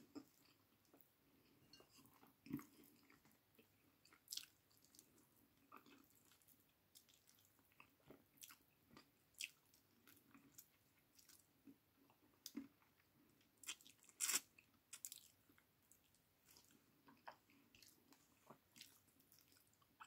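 Close-up eating sounds of a person eating chicken and rice by hand: soft chewing and lip smacks, with sharp wet mouth clicks scattered throughout, the loudest about fourteen seconds in.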